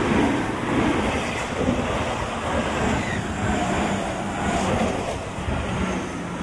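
Tokyu Den-en-toshi Line electric commuter train running past close by: a steady rumble and clatter of wheels on the rails. A faint whine from the traction motors sits above it.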